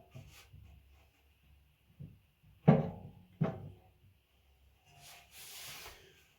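Two sharp knocks on a hard object, each with a short ring, about three quarters of a second apart, followed by a soft hiss.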